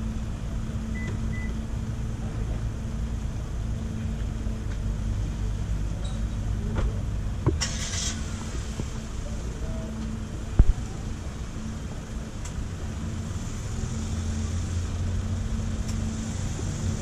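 Steady low engine drone with a constant hum. A short click and hiss come about seven and a half seconds in, and a sharp knock about ten and a half seconds in.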